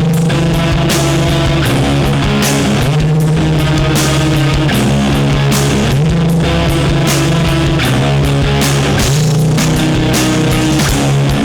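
Loud rock music with distorted electric guitar, bass and a steady drum beat.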